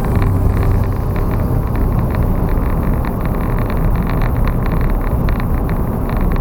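Steady vehicle noise, a dense low rumble like a car on the road, with many faint short ticks above it.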